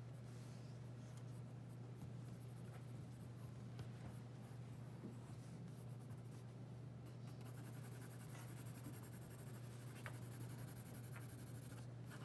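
Graphite pencil scratching on drawing paper in repeated sketching and shading strokes, over a steady low hum.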